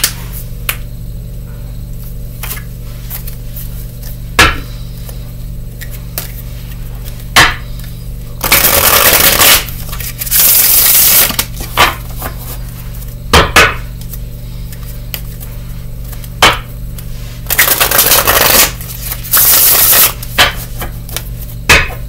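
A deck of tarot cards shuffled by hand: sharp taps and slaps of the cards, with four longer rushing bursts of about a second each, in two pairs, as the cards are run through together.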